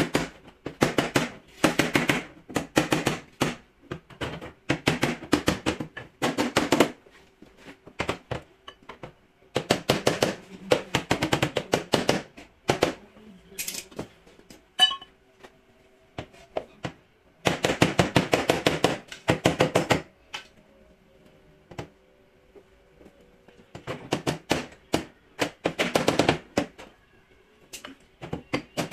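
Hand hammer rapidly tapping the dented sheet-metal wheel-arch lip of a car's rear quarter panel to straighten it. The taps come in quick bursts of about a second each, with short pauses between.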